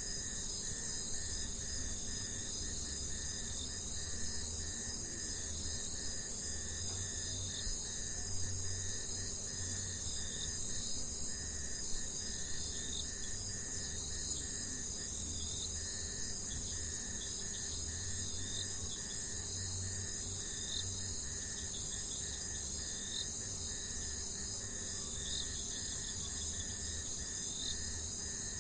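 Jungle ambience: a dense, continuous chorus of insects trilling high and steady, with a pulsing mid-pitched call and scattered short chirps over it. A low rumble swells and fades underneath.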